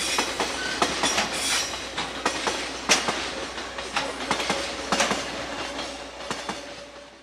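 Freight train wagons rolling past, their wheels clacking over the rail joints at an uneven pace, fading away near the end and then cutting off suddenly.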